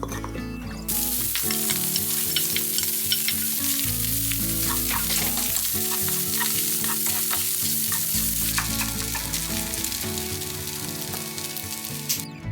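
Food sizzling as it fries in a pan, with occasional clicks of a utensil stirring it, over background music. The sizzle starts about a second in and cuts off suddenly near the end.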